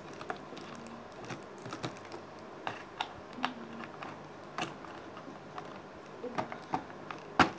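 Irregular light clicks and taps of plastic stationery being handled in an open plastic art-set case, with a sharper double knock near the end.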